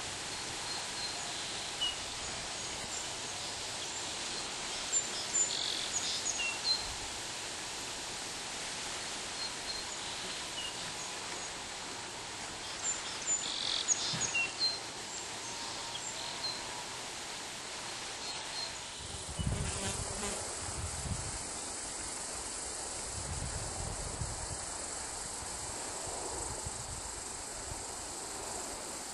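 Steady rush of river water at the rapids, with short high bird calls scattered through the first half. A patch of low rumbling comes in past the middle.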